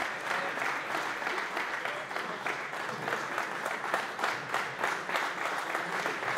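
Audience applauding steadily: the dense patter of many hands clapping.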